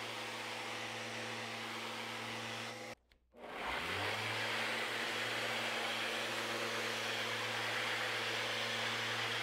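Random orbital sander running on the epoxied cedar-strip interior of a kayak hull, with a shop vacuum hooked up for dust extraction: a steady motor hum under a broad sanding hiss. It cuts out briefly about three seconds in, then resumes, the motor note climbing back up to speed.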